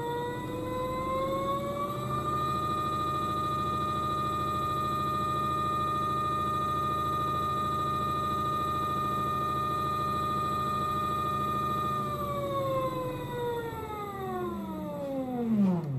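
Modified LG Mini TurboWash washer's direct-drive motor and drum whining through a 720 RPM spin. The pitch rises for the first two seconds or so, holds steady at full spin speed, then falls away over the last four seconds as the drum winds down to a stop.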